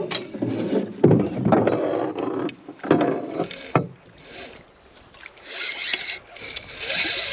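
Irregular splashing and knocks, then a fishing reel's drag buzzing steadily from about five and a half seconds in as a hooked fish pulls line off the spool.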